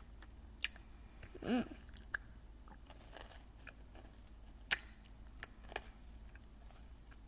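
Hard cough candy being crunched and chewed in the mouth: a handful of sharp, separate crunches, the loudest about two-thirds of the way through.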